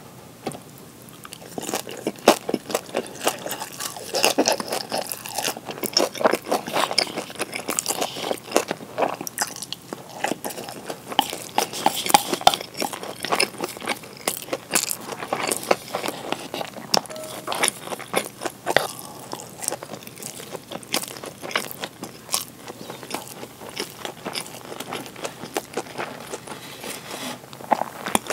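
Close-miked eating sounds: a bite into a pan-fried gyoza dumpling, then steady crunchy, wet chewing with many small sharp mouth clicks.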